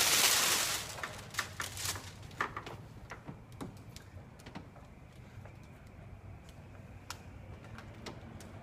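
Release liner being peeled off thick security window film: a continuous papery hiss for about the first second, then scattered light crackles and clicks as the film is handled.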